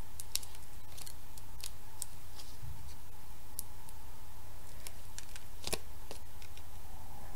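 Fingernails picking and peeling the backing papers off Mini Dimensionals foam adhesive dots on black cardstock: scattered faint light ticks and paper rustles, fiddly work with the tiny dots. A steady low hum runs underneath.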